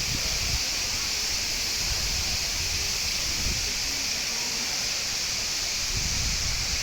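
Rushing water: a steady hiss of falling or flowing water, with a few low thumps.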